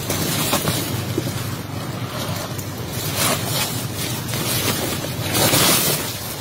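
Steady rushing wind noise on the microphone, swelling loudest about five and a half seconds in.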